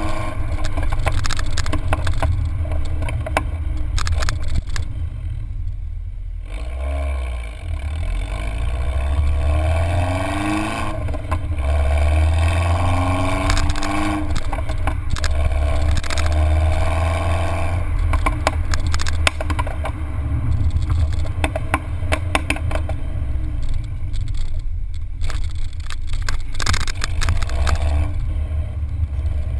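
John Cooper Works exhaust on a MINI Cooper R56 with the 184 hp turbocharged four-cylinder, heard from the twin centre tailpipes while the car is driven. The exhaust note climbs in pitch several times as the revs rise and falls away in brief dips, with wind and road noise over it.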